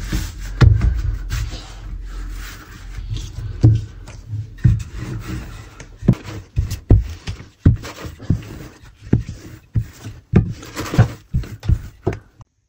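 Hands stretching a sheet of byrek dough on a floured work surface: rubbing and handling noise with a string of soft low thuds as the dough is pulled and patted down. The sound stops suddenly near the end.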